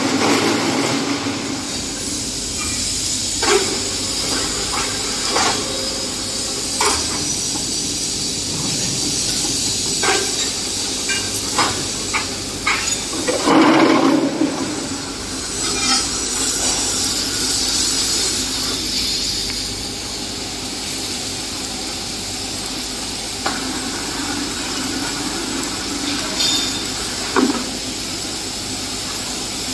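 QTJ4-25D automatic concrete block making machine running: a steady mechanical hum and hiss with scattered metallic knocks and clanks, and a louder clanking spell about fourteen seconds in.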